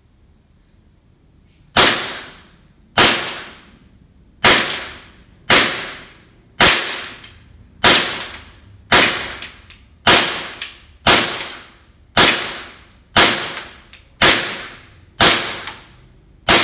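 WE Glock 19 gas blowback airsoft pistol firing single shots at a steady pace of about one a second: about fourteen sharp cracks, starting a little under two seconds in.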